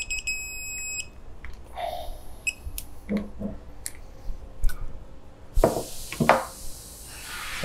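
Digital torque wrench beeping, one steady high tone about a second long, signalling that the set torque has been reached on the bolt. After it come light clicks and knocks of the wrench being handled and set down.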